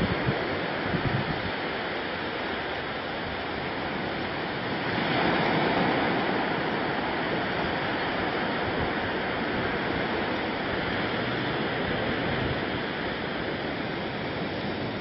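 Steady wash of sea surf breaking on a sandy beach, swelling slightly about five seconds in.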